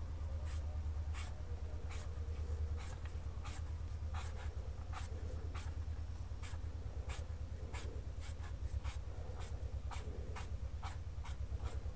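Felt-tip marker scratching on paper in quick back-and-forth strokes, about two to three a second, as a shape is coloured in, over a steady low hum.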